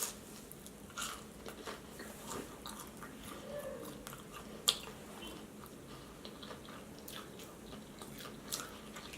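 A person chewing and biting food close to the microphone, with scattered soft crunchy clicks and a sharper click about halfway through.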